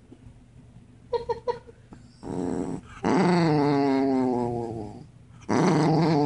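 Pet dog growling in long, drawn-out grumbles, two of them, the first about three seconds in and the next starting near the end, after a few short sharp sounds about a second in.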